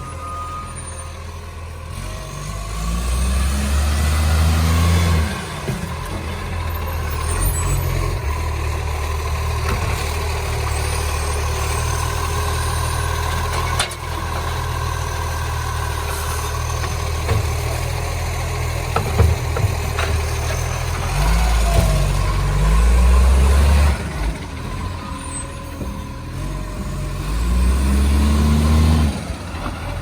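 Diesel engine of a garbage (recycling) truck running, revving up three times with a rising pitch held for a couple of seconds each, and dropping back to a lower, steady run in between.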